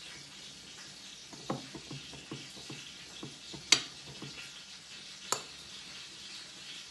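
A metal spoon scraping and spreading garlic butter over halved baguettes on a china plate, a string of light scrapes and taps, with a sharp clink of spoon on plate or bowl about halfway through and another about a second and a half later.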